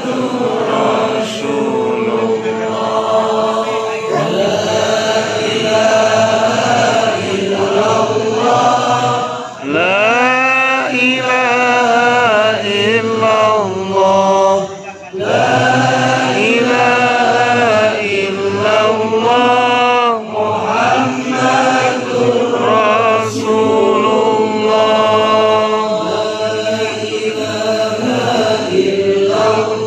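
A congregation of men chanting dhikr together in unison, with long drawn-out notes that glide up and down and two brief pauses for breath.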